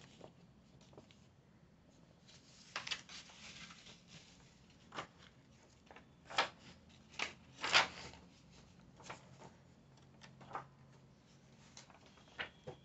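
Paper pages of a comic book being turned and handled: a run of short rustles and flaps, the loudest a little past the middle.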